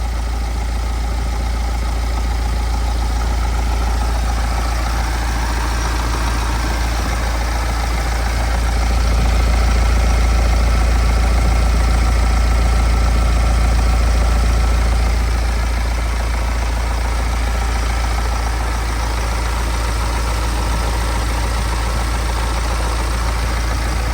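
BMW X1 18d's four-cylinder diesel engine idling steadily, just restarted with a new crankshaft pulley and its accessory belt refitted. It grows slightly louder for several seconds midway, then settles back.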